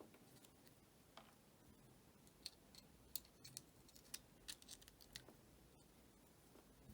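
Near silence broken by a scatter of faint, sharp clicks and taps, most of them in the middle few seconds: small tools and parts being handled during the phone repair.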